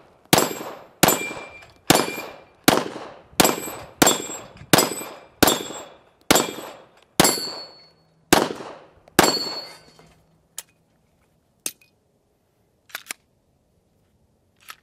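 Smith & Wesson M&P M2.0 5-inch 9mm pistol firing about a dozen shots in slow, steady succession, roughly one a second. The shooting stops about nine and a half seconds in when the pistol fails to feed, and a few faint clicks follow as the gun is handled.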